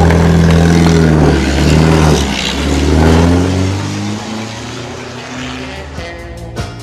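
The 6.5-litre engine of a 1945 Bentley Special running loud, then revving up twice with rising pitch as the car pulls away, fading over the next few seconds. Music comes in near the end.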